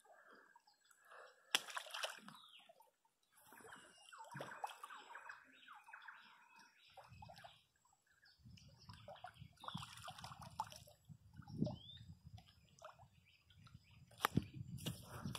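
Faint open-air riverside ambience: scattered short chirps and clicks, with a low rumble starting about halfway and a sharp click near the end.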